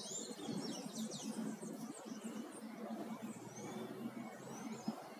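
Birds chirping in short, quick calls that slide up and down, busiest in the first second or so, over a low steady hum.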